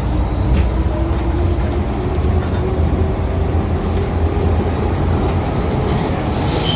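First-generation MTR M-Train (CM Stock) electric metro train running along the track with a heavy, steady rumble and a faint motor whine that slowly rises in pitch. Near the end a high-pitched wheel squeal starts.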